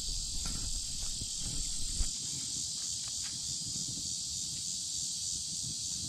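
Steady high-pitched chorus of insects, with a low rumble on the microphone for the first two seconds that ends in a single knock.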